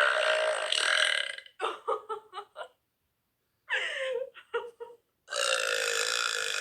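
Girls burping loudly: one long drawn-out burp of about two seconds at the start and another near the end, with a few short choppy sounds between them.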